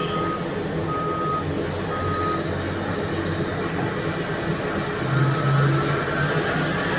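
Reversing alarm on heavy mining equipment beeping about once a second, three times, then stopping, over the steady drone of large diesel engines. The engine tone swells for a moment about five seconds in.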